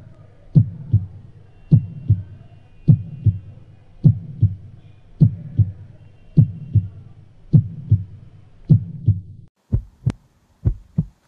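Heartbeat sound effect: slow, evenly spaced double thumps, a pair about every second, over a low hum. Near the end the hum cuts off and the heartbeat goes on alone, slightly quicker.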